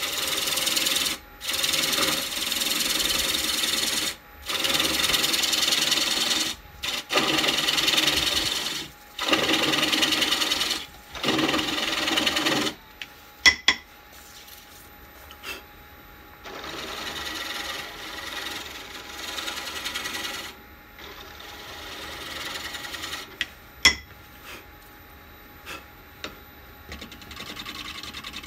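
Turning gouge cutting into a half-green cherry wood plate spinning on a wood lathe, removing the leftover centre tenon from the plate's underside. It goes as a run of loud scraping cuts of a second or two each, then softer, longer cuts, with a few sharp clicks in between.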